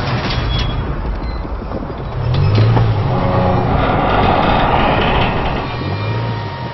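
A car engine pulling under load while railway carriages begin to roll on the track. A few sharp metallic clanks come about half a second in, and a louder rattling, grinding run-along noise builds in the middle before easing.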